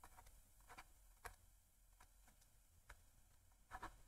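Faint, sparse ticks of a stylus tip tapping on a tablet while a word is handwritten, a handful of separate clicks with a small cluster near the end, over near silence.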